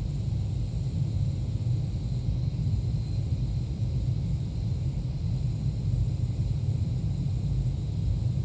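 Seafloor microseisms recorded by an ocean-bottom seismometer and sped up 360 times into the audible range: a steady, noisy rumble.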